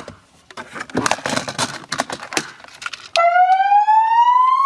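A click, then a couple of seconds of rustling and handling noise. About three seconds in, a car-mounted megaphone's siren starts abruptly as a loud wail that rises slowly and steadily in pitch.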